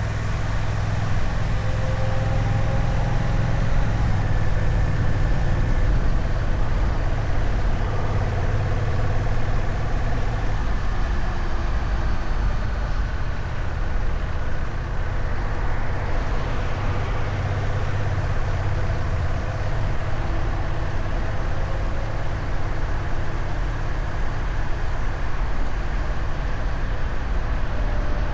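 Honda Rebel 1100 DCT's parallel-twin engine on its stock exhaust, running steadily at a constant 60 km/h on cruise control, a low, even drone with road noise.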